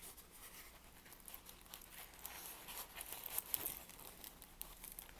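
Clear plastic film on a rolled diamond-painting canvas crinkling as hands unroll and handle it: faint, irregular small crackles, busiest from about two to three and a half seconds in.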